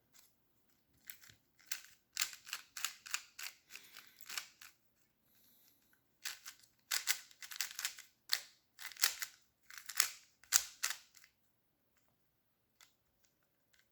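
Plastic clicking and clacking of a MoFangJiaoShi 3x3 speed cube being turned rapidly by hand, in two runs of quick turns with a short pause between them; the turning stops a few seconds before the end.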